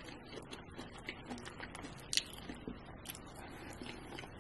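Close-miked chewing with the mouth closed: soft wet mouth clicks and smacks, with light taps of a plastic fork in a plastic takeout container. Faint, with one sharper click about halfway through.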